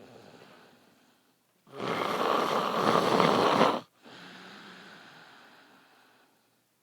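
A sleeping man snoring loudly: one long snore of about two seconds in the middle, between quieter breaths that fade out, one at the start and a longer one after the snore.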